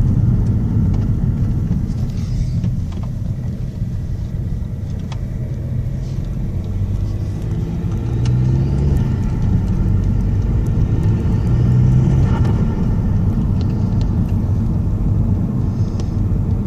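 Vectra C 1.9 CDTi diesel engine with an open induction kit, running with a low rumble that swells between about eight and twelve seconds in as the engine note shifts.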